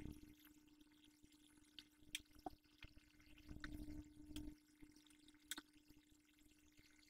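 Near silence: a faint steady hum of room tone, with a few soft, isolated ticks.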